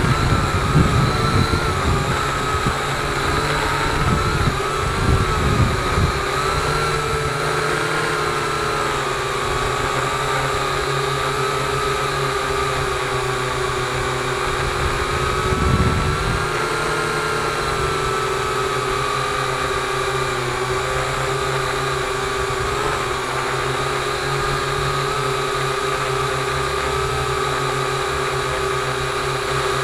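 A drone's electric motors and propellers whining steadily, the pitch drifting slightly up and down as the craft manoeuvres. Wind buffets the microphone in the first few seconds and again about halfway through.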